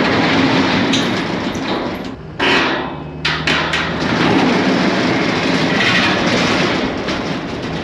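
Excavator's diesel engine running under load as the bucket shoves culvert pipes along a wooden trailer deck, with scraping and a quick run of knocks about two and a half to three and a half seconds in.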